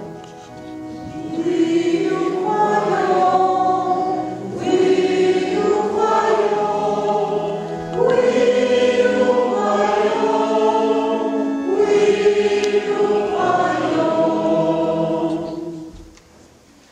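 A church congregation and choir singing a hymn together in four phrases of about four seconds each, with long held notes. The singing stops near the end.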